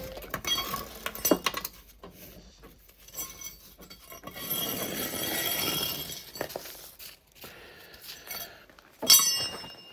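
Metal hand tools clinking and clattering as they are handled. There are sharp metallic clinks with a ringing tail about a second in and again near the end, and a few seconds of rummaging and scraping in the middle.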